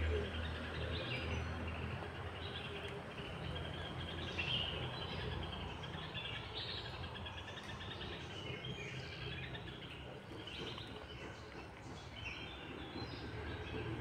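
Birds chirping in short scattered calls over a steady rush of water from a small waterfall on a rocky stream.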